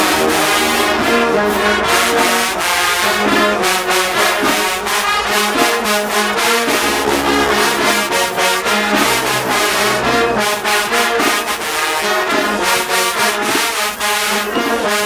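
HBCU-style marching band playing loud brass music, with trombones and trumpets over a low brass bass line and steady drum and cymbal strokes.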